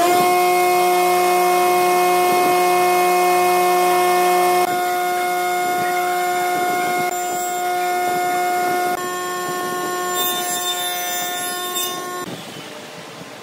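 Electric power tool motor spinning up, then running at a steady whining pitch for about twelve seconds before cutting off near the end.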